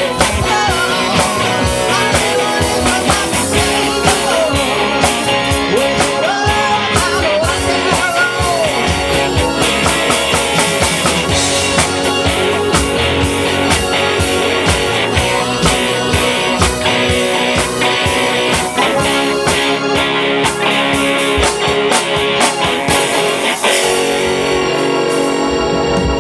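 Live rock band playing an old rock and roll number, with a driving drum kit, electric guitar and keyboards, and some singing in the first part.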